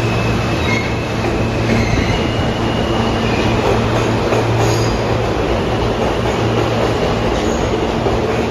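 Alstom R160A-1 subway train entering an underground station and running past along the platform: a loud, steady rumble of wheels on the rails over a low hum, with thin high whining tones during the first few seconds.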